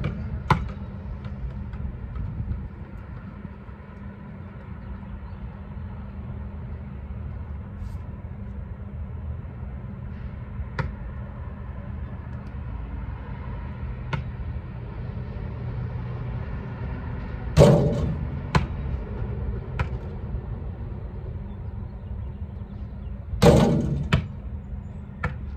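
Two loud basketball impacts on the hoop and the asphalt, about two-thirds of the way in and again near the end, each ringing briefly, with a few light taps between, over a steady low rumble.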